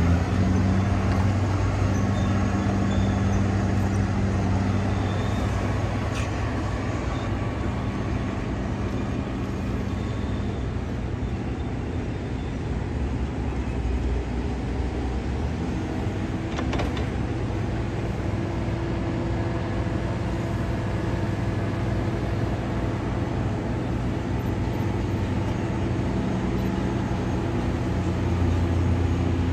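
Caterpillar D9T bulldozer's diesel engine running steadily, its note shifting about halfway through, with a couple of short sharp clanks.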